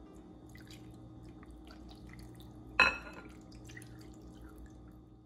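Kitchen preparation sounds: scattered small wet drips and light clicks over a low steady hum, with one louder clink a little under three seconds in.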